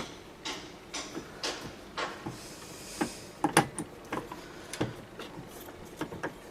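Scattered light metal clicks and knocks as a flywheel is worked onto the crankshaft of a Homelite XL-12 chainsaw and won't slide on.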